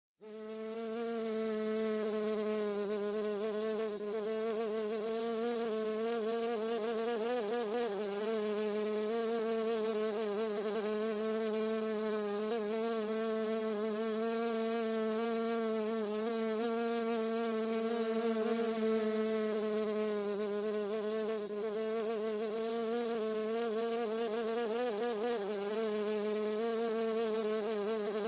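Bee buzzing in flight: a steady droning hum whose pitch wavers slightly up and down.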